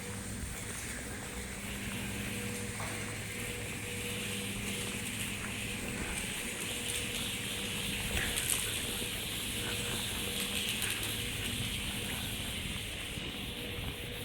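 Industrial machinery running steadily: a low hum under a continuous hissing rattle, with a few faint clicks.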